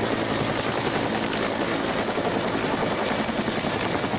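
Helicopter sound, a steady fast rotor chop with a thin, even high-pitched whine over it.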